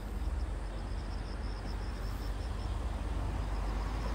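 Steady outdoor evening ambience: a low rumble and an even hiss, with an insect chirping in short, regular high-pitched pulses, about five a second.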